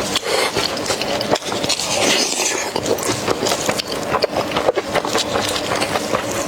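Close-up eating sounds of red-braised lamb chops: chewing and dense small clicks and scrapes, going on steadily throughout.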